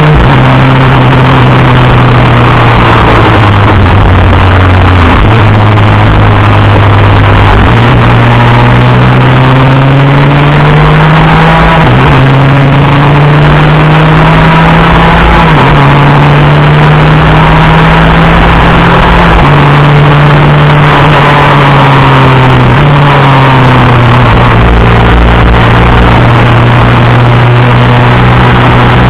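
Superkart's two-stroke engine at racing speed, heard onboard. Its pitch climbs steadily under acceleration and drops sharply at each upshift, three times in the middle stretch, and falls back as the kart slows for corners.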